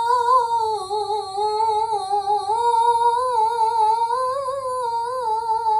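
A young girl's voice in melodic Quran recitation (tilawah), holding one long ornamented note with a fine, wavering vibrato. The pitch sinks about a second in and climbs back toward the end.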